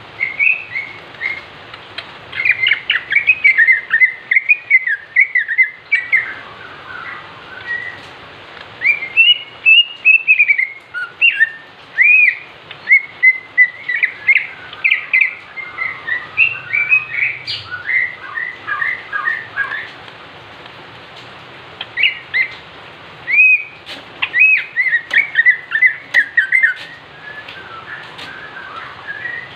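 Cucak ijo (green leafbird) singing in fast, loud runs of varied chirping, whistled notes, broken by a few short pauses. This is a provoking song meant to stir up other cucak ijo.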